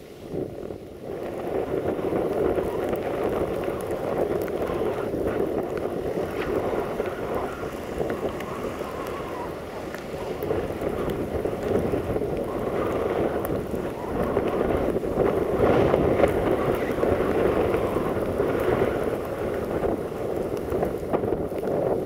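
Gusty blizzard wind buffeting the microphone, over the low, steady rumble of a 060-DA (LDE2100) diesel-electric locomotive approaching with a passenger train, growing a little louder in the second half.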